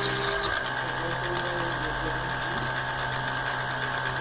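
Mini CNC machine running while milling a printed circuit board: a steady motor hum throughout, with a second, higher tone from the machine cutting off about half a second in.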